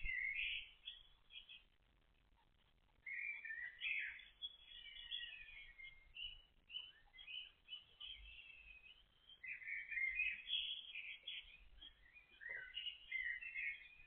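Small birds chirping and singing in quick, high twittering phrases that overlap, with a pause of about a second near the start.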